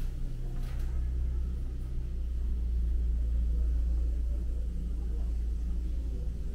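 Low, steady engine rumble, with a faint hum that fades out about two seconds in.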